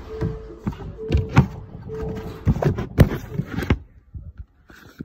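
Handling noise: a run of irregular knocks and clattering for about four seconds, with a short steady hum cutting in and out three times during the first half.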